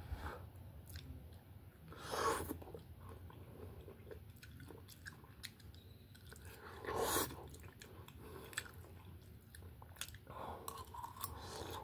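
Close-up chewing and biting of a mouthful of stir-fry with rice: many short wet mouth clicks, with two louder rushes of noise about two and seven seconds in.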